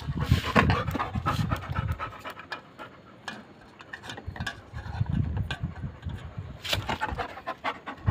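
Yellow Labrador retriever panting rhythmically, softer for a few seconds in the middle, with a few sharp clicks.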